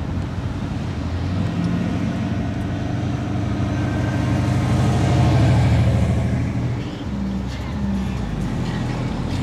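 Classic cars and a pickup driving slowly past one after another, their engines running. The sound swells to its loudest about halfway through as one vehicle passes close, then eases off.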